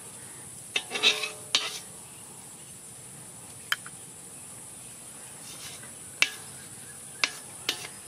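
A few light, sharp clicks and taps as spices and plastic cups are handled at a flat stone grinding slab, over a steady faint high-pitched hiss.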